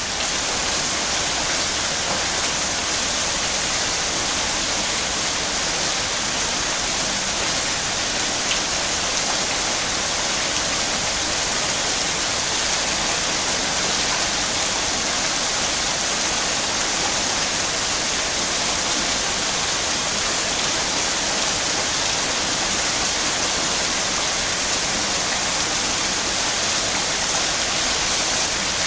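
Rain falling steadily, an even hiss without breaks.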